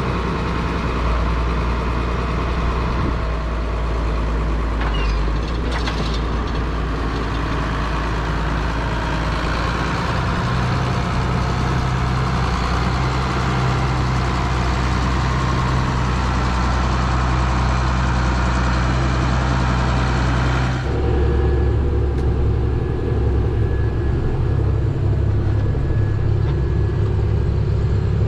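New Holland tractor's diesel engine running steadily as the tractor pulls away with a mounted cultivator; its note steps up about ten seconds in. About two-thirds of the way through, the sound changes abruptly to the engine as heard from inside the tractor cab.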